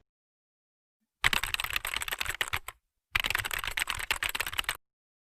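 Rapid computer-keyboard typing clatter, a sound effect, in two runs of about a second and a half each, separated by a short gap.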